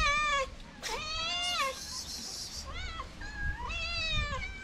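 Several stray cats and kittens meowing one after another, the calls arching in pitch and sometimes overlapping, as the hungry cats beg for food. A short hissing noise comes about two seconds in.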